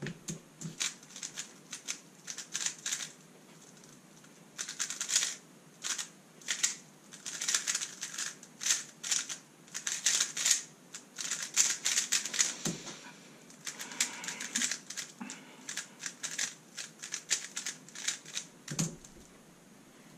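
Thunderclap v3 M magnetic 3x3 speedcube being turned fast: bursts of quick plastic clicking and clacking as the layers snap round. A dull thud about two-thirds of the way through and another near the end.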